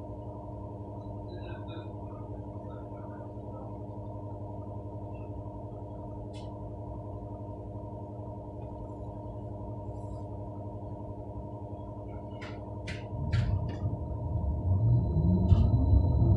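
Bombardier NGT6 low-floor tram standing with a steady electrical hum. A few sharp clicks come near the end, then a rising whine and growing rumble begin as the tram moves off.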